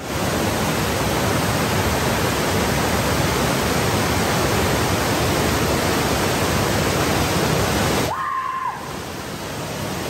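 Steady, loud rushing roar of a waterfall heard up close, which drops away abruptly about eight seconds in. Just after the drop comes a brief single held note.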